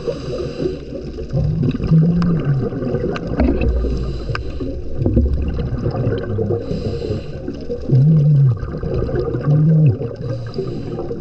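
Underwater sound of a diver breathing through a scuba regulator: a hissing inhalation about every three to four seconds, with bubbling and short humming exhalations between them.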